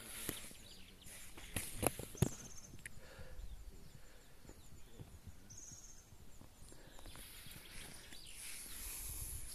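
Quiet outdoor garden ambience with short, faint, high chirps now and then. A few sharp clicks sound in the first two seconds or so.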